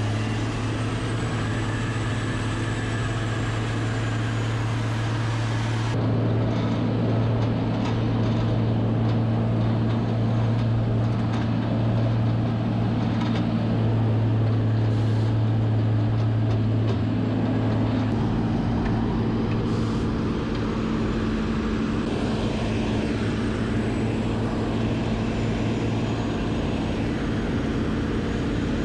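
Farm machinery running steadily at working speed: a truck-mounted hay chopper grinding big square hay bales, with the engine of the loader feeding it. A low, steady drone runs throughout, and the sound changes abruptly about six seconds in.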